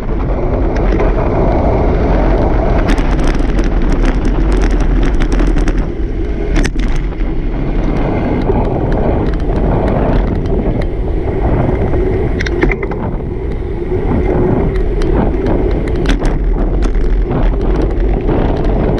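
Wind buffeting the microphone of a camera riding low along a road, with steady road rumble and scattered clicks and knocks from surface bumps. A brief squeak comes about twelve seconds in.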